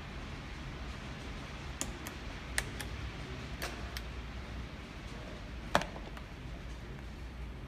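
Model passenger train rolling along the layout's track: a low steady rumble with a handful of sharp, irregular ticks, the loudest about six seconds in.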